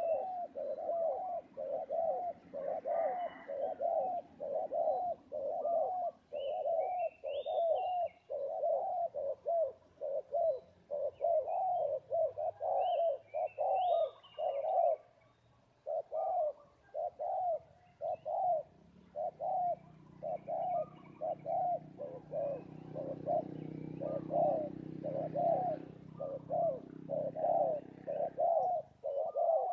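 Spotted dove cooing in a long, steady run of repeated notes, about two a second, pausing briefly about halfway. Other small birds chirp now and then above it.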